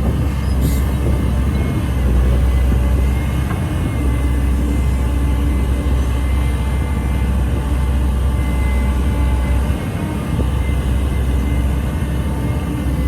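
Heavy diesel engine of earthmoving machinery running steadily with a deep, even drone, easing briefly about ten seconds in.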